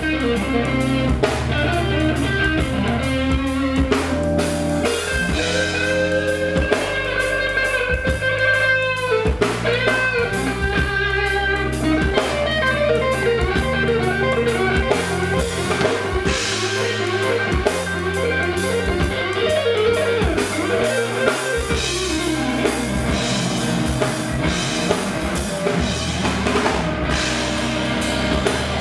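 Live instrumental jam by an electric band: a PRS electric guitar plays an improvised lead line of held, bent notes over electric bass and a drum kit. A long held note bends up and down about nine seconds in.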